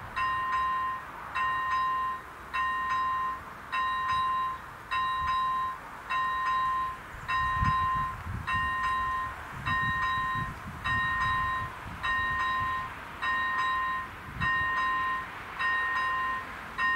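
Electronic warning bell of a Czech level crossing ringing a repeating two-tone ding, just under once a second, while the crossing is active. A low rumble passes underneath in the middle.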